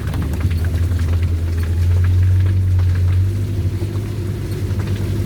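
Off-road vehicle engine running steadily at low speed, a strong low hum with faint knocks and rattles over the top.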